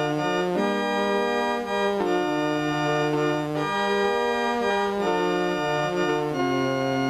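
Soundtrack organ music: held chords that change about every second and a half over a moving bass line.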